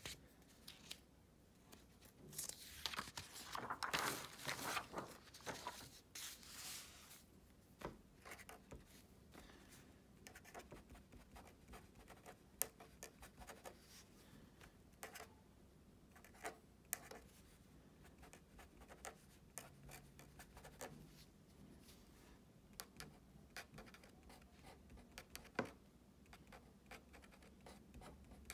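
Marker pen writing on paper, faint short scratching strokes with small taps. About two to seven seconds in there is louder rustling as paper sheets are moved.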